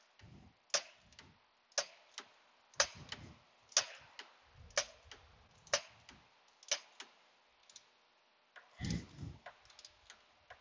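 Ratchet wrench clicking about once a second as it is swung back and forth, running down the AC compressor mounting bolts, with a soft low rustle of handling near the end.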